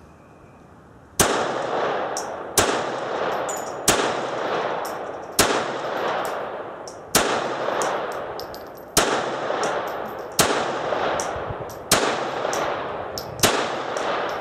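A CZ 27 pistol in 7.65 mm Browning (.32 ACP) firing nine single shots, about one every second and a half, each crack trailing off in a long echo. The full nine-round magazine is emptied.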